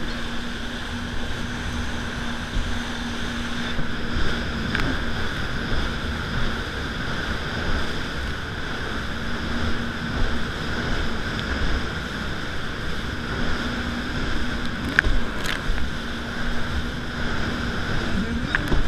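Yamaha VX 110 jet ski's four-stroke engine running steadily under way, mixed with water spray, hull slap and wind buffeting the mounted camera's microphone. A few sharp knocks stand out about five seconds in and again in the last few seconds.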